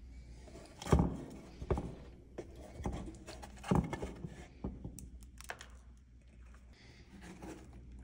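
A plastic dryer lint chute being handled while packed lint is pulled out of it by hand: irregular knocks and thunks with rustling of the lint, the loudest knock about a second in.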